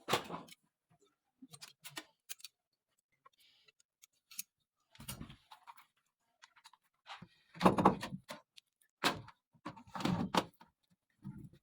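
Scattered clatters and knocks of objects being handled, in short irregular bursts with gaps between. The loudest thuds come about eight and ten seconds in.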